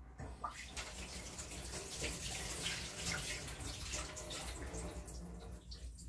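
Water running from a kitchen tap into a stainless steel sink while hands rinse something under the stream, with small splashes. It starts about half a second in and eases off near the end.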